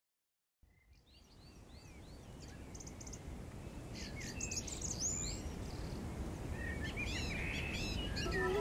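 Birds chirping over a low outdoor background noise, fading in gradually after a brief silence.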